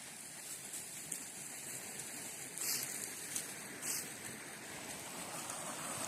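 Steady rushing noise of running water, with two brief hissing bursts near the middle.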